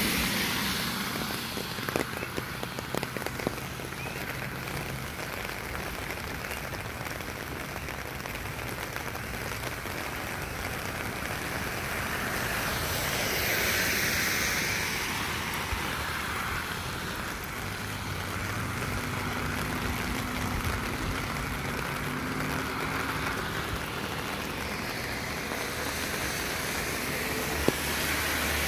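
Steady rain, with cars passing on the wet road: the hiss of tyres on wet pavement swells and fades at the start, about halfway through and again at the end. A few light clicks come two to three seconds in.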